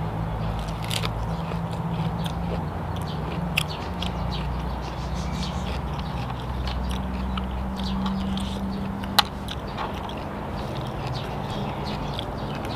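Blood cockle shells clicking as they are picked from the tray and prised open by hand, with chewing in between; a sharp click about nine seconds in is the loudest. A steady low hum lies under it.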